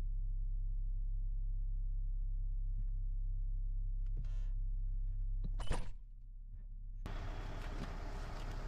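A steady low mechanical hum with a few faint clicks, a brief rustle, and one sharp knock a little past halfway, the loudest moment. Near the end it gives way to a steady hiss of outdoor noise.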